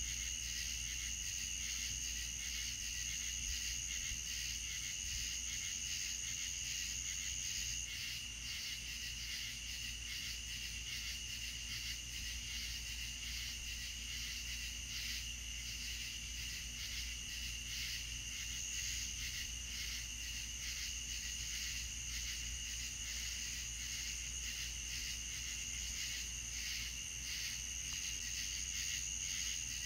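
Night chorus of crickets and other insects: steady high-pitched trilling with a fast pulsing chirp underneath. The highest trill drops out about eight seconds in and returns near the end.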